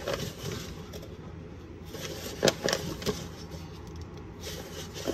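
Flour shaken from a paper flour bag into a mixing bowl: the bag rustles and crinkles, with a few sharp taps about halfway in.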